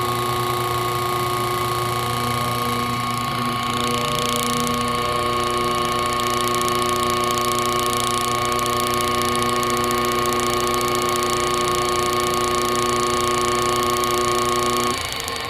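Washing-machine motor running steadily on a test cable, a constant hum with several steady tones, running below its full speed because the temporary test capacitor is weak. Near the end the power is cut and the hum stops, the motor spinning down.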